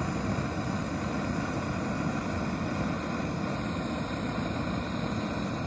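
Backpacking canister stove burner running with a steady hiss, heating a pot of water.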